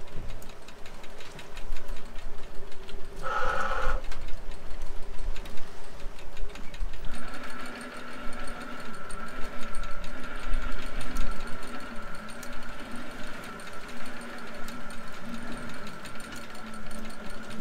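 Electric cod-jigging machines running at the boat's rail: a steady mechanical whirring with fine ticking over a low engine rumble. A short, louder tone sounds about three seconds in. From about seven seconds a higher steady whine joins in, with a wavering lower hum under it.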